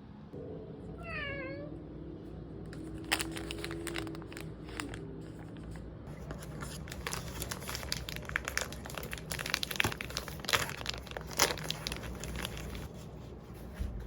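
A cat meows once, briefly, about a second in, followed by a run of crinkling and clicking handling noises.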